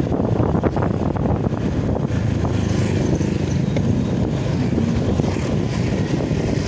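Motorcycle engine running steadily while riding along a road, heard from the rider's own bike.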